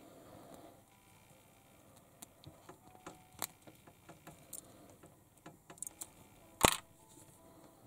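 Small plastic toy-figure parts being handled and fitted, giving scattered light clicks and taps, with one sharp, much louder click about two-thirds of the way in.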